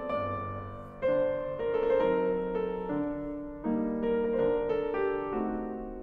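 Background piano music: slow, sustained chords, with new chords struck about a second in and again past halfway.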